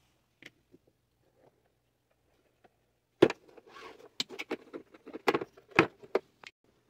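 Hard plastic tool case being closed and its latches snapped shut: a series of sharp plastic clicks and knocks starting about three seconds in, the first one the loudest.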